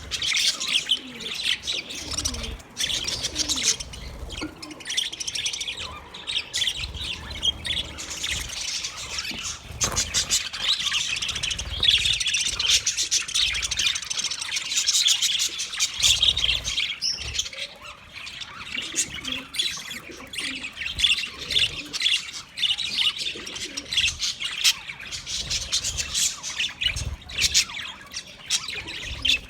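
A flock of budgerigars chirping and chattering continuously, many short overlapping high chirps and warbles.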